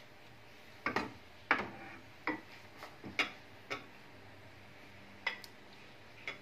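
Plastic ladle knocking and scraping against the rims of a ceramic serving bowl and a cooking pot while curry is ladled out, in a series of irregular sharp taps, some with a short ring.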